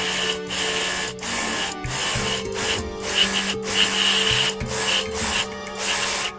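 Airbrush hissing as it sprays paint onto a plastic model part, in short passes that cut off briefly about once a second, over background music.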